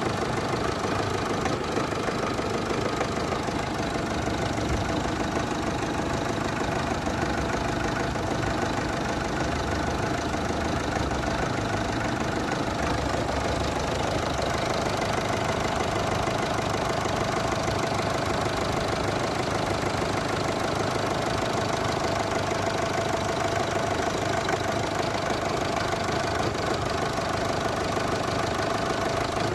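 Car diesel engine idling at an even level. Its owner complains that it intermittently shudders and hunts at idle even with good injectors. The mechanic takes this for dirt in the diesel fuel circuit and a dirty fuel-rail pressure sensor.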